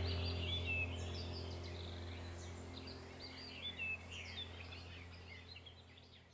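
Small birds chirping and twittering over a steady low hum, the whole sound fading out gradually.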